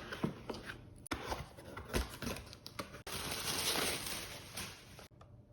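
A keyboard's retail box being opened and handled: scattered taps and rustles of packaging. Then comes a louder, steady rustling scrape lasting about two seconds, which cuts off abruptly near the end.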